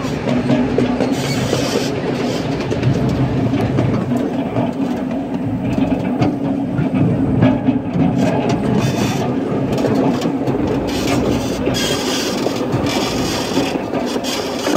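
Miniature ride-on railroad train running along its track, heard from an open passenger car: a steady rumble of wheels on rail with a low steady hum, and a run of clicks over the rails in the middle stretch.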